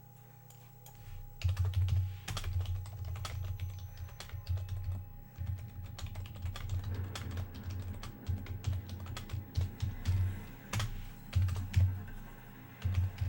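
Typing on a computer keyboard: irregular runs of key clicks with dull low knocks through the desk.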